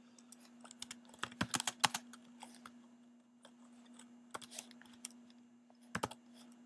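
Typing on a computer keyboard in short bursts of keystrokes: about a second in, around four and a half seconds, and again near six seconds. A faint steady hum runs underneath.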